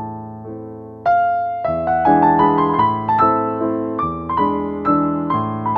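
Background music: a piano, sounding like an electric piano, playing chords and melody notes, fading on a held chord before a louder chord comes in about a second in.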